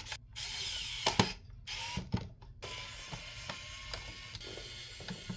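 Scattered clicks and scraping of small plastic and metal parts being handled as plug-in wire connectors are pulled off a radio's circuit board, with a sharp click about a second in and another about two seconds in.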